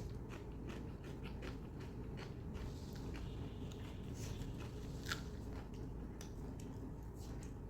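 Close-miked chewing of mutton curry and soaked roti: a scatter of short wet mouth clicks and smacks, with one sharper click about five seconds in, over a steady low hum.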